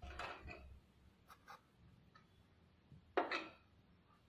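Light kitchenware handling: a short scrape at the start, two faint clicks about a second and a half in, and a louder, brief scrape just after three seconds in.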